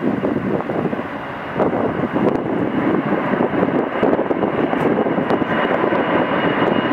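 Boeing 747's four jet engines at takeoff thrust as the airliner rotates and lifts off: a loud, steady rumble that grows louder about a second and a half in, with a high whine over it near the end.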